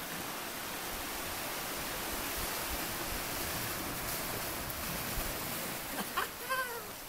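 Steady rushing hiss of sea surf. A short falling call cuts through about six seconds in.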